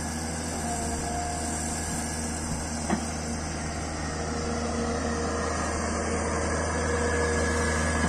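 Tracked hydraulic excavator's diesel engine running steadily as it digs and lifts a bucket of soil, with a single sharp knock about three seconds in. The engine grows a little louder over the last few seconds as the loaded bucket is raised.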